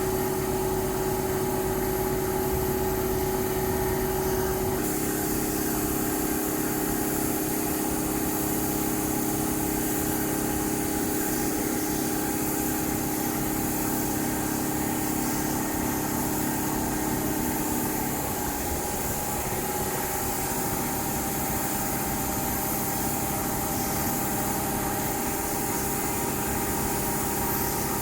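Woodworking machinery running steadily with a constant motor hum, its pitch stepping down slightly about five seconds in and shifting again a little later.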